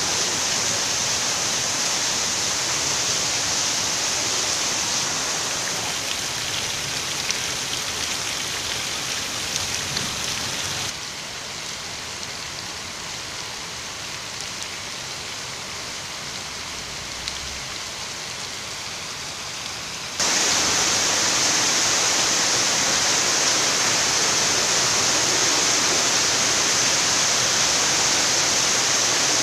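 Heavy rain falling steadily, with rainwater pouring off roof edges. It drops to a softer downpour about eleven seconds in, then comes back louder about twenty seconds in.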